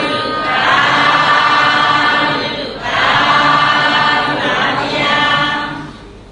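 Pali verses chanted in the Burmese Buddhist style, in long, drawn-out held notes. There are two sustained phrases with a short break just before the middle, and the second fades out near the end.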